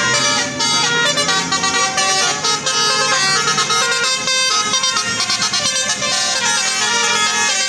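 Indonesian bus 'telolet' multi-tone air horn playing a melody, its several horn pitches stepping from note to note, with a brief break about four and a half seconds in.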